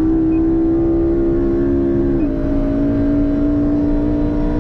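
McLaren 675LT's twin-turbo V8 pulling hard at high revs, its note rising slowly. About two seconds in the pitch steps down with a quick upshift, then climbs again.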